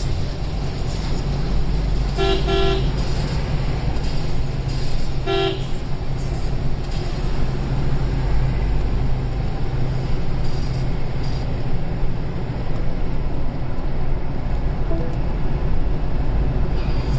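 Steady engine and road noise of a vehicle driving along a highway, with a vehicle horn: two short toots about two seconds in and one more short toot about five seconds in.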